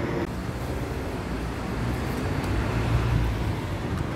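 Road traffic noise, a steady rumble of passing vehicles that swells about three seconds in.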